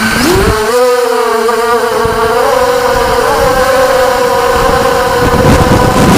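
Motors and propellers of an FPV racing quadcopter giving a loud buzzing whine. Its pitch rises in the first second as the throttle comes up, then holds steady with a slight waver.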